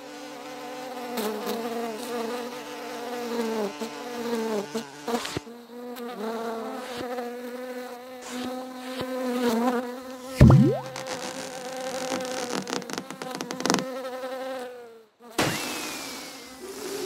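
A fly buzzing, its pitch wavering up and down as it flies about, with a sudden low thump about ten seconds in. The buzzing stops near the end.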